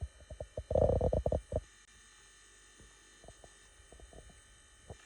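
Cockatiel pecking at its food with its beak: a quick run of sharp clicks and knocks about a second in, then scattered softer clicks.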